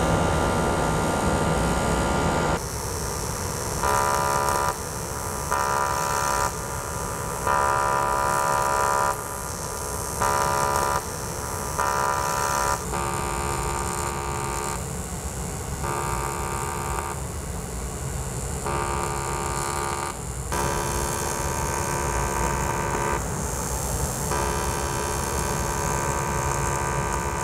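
AC TIG welding arc on an aluminium motorcycle engine block: a steady electric buzz with hiss that swells and drops back every second or so as the current changes.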